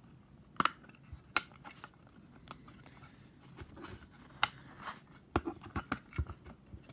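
Scattered sharp clicks, snaps and short scrapes of a plastic Defender phone case and its packaging being handled and opened, coming more often in the second half.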